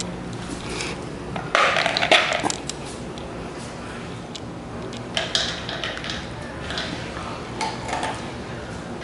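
Hard plastic clattering and kibble rattling from a slow-feeder puzzle toy as a dog eats from it, in a few short bursts, the loudest about a second and a half in.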